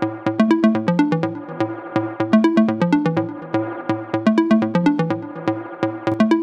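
Electronic background music with a steady beat and a repeating synthesizer bass pattern.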